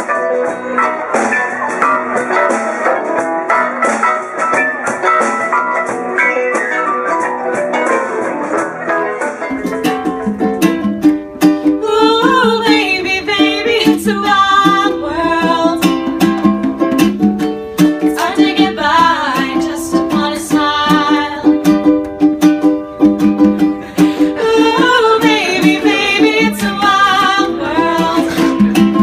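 Live band music with keyboard, congas, drum kit and electric guitar; about nine seconds in it cuts abruptly to a woman singing to a strummed ukulele with congas.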